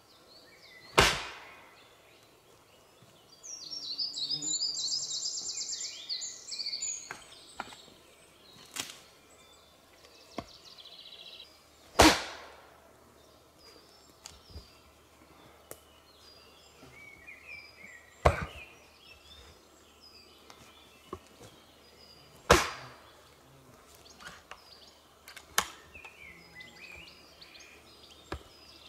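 Axe chopping into a wooden log: about half a dozen sharp strikes, several seconds apart, each trailing off briefly. A bird sings between the first two strikes.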